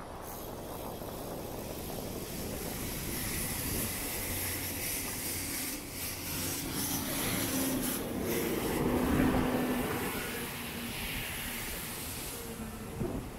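A vehicle passes by, its sound building to a peak about nine seconds in and then fading, over a steady background of traffic noise.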